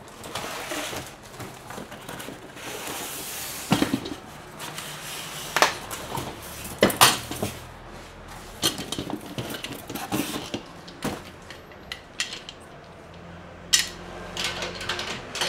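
Plastic wrap and cardboard rustling, with a dozen or so separate sharp clacks and knocks of hard plastic parts being handled: the white plastic wheeled feet of an oil-filled radiator heater being unpacked and handled.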